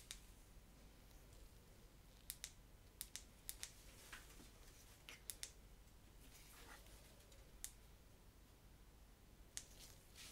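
Faint, scattered clicks and light handling noises from small plastic camera accessories being handled and fitted, about a dozen short clicks over near silence.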